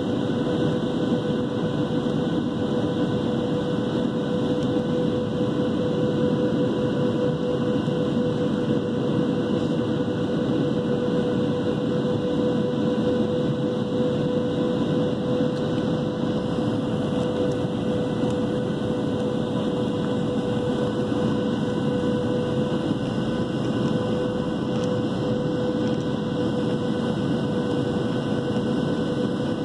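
Cabin noise inside a Boeing 737-700 airliner in flight on approach: the steady rush of its jet engines and airflow, with a constant hum running through it.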